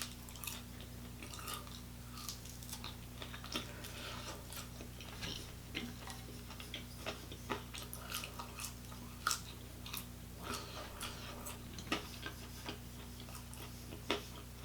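Close-up chewing of crispy, seasoned chicken wings: an irregular run of small crunches and wet mouth clicks while eating.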